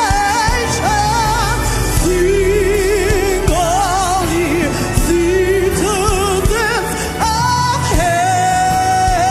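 Live gospel worship music: a singer holds and bends long notes with wide vibrato over a band's steady bass and chords.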